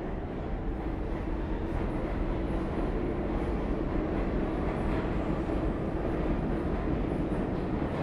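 New York City subway train running on the tracks: a steady rumble that grows a little louder over the first few seconds, then holds.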